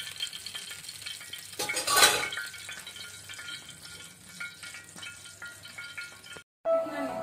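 Oil sizzling faintly on a hot tawa, with a brief louder burst about two seconds in. Near the end the sound cuts out for a moment and string music begins.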